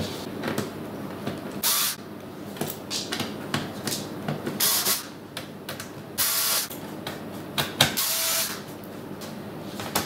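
Small cordless electric screwdriver running in several short bursts of about half a second each, backing screws out of a metal chassis plate, with light clicks of handling in between.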